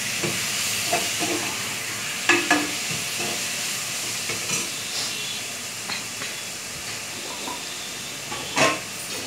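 Chopped onion, carrot, tomato and cashews sizzling in oil in a metal pan while a spatula stirs them. A few sharp taps of the spatula against the pan stand out, the loudest near the end.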